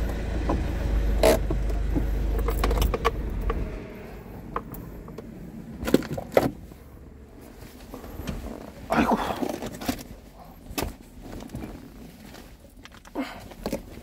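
Low rumble of a vehicle heard from inside its cab, which drops away about four seconds in. Then come scattered clicks, knocks and rustling as things are handled around the dashboard.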